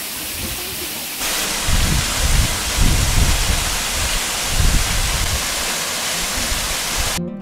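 Manyava waterfall pouring into its plunge pool: a loud, steady rush of falling water, stepping up about a second in, with deep uneven rumbles underneath. It cuts off suddenly just before the end.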